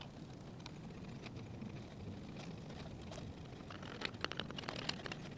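Mechanical tractor top link being spun shorter by hand: faint metallic clicks and light rattling as the threaded rod end turns in the barrel, coming more often in the second half.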